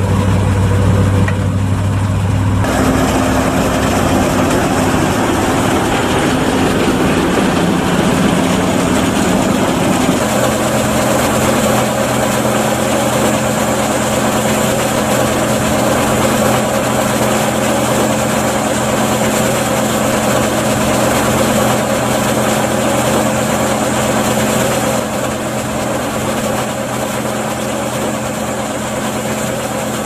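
Massey Ferguson 520 Super II combine harvester running steadily, its diesel engine and machinery droning while it unloads grain through its auger. The tone changes abruptly about three and ten seconds in, and the level drops slightly near the end.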